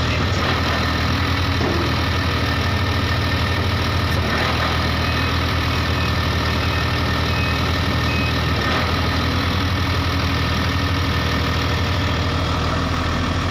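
Case 2050M crawler bulldozer's diesel engine idling steadily, with a couple of faint clicks about four and nine seconds in.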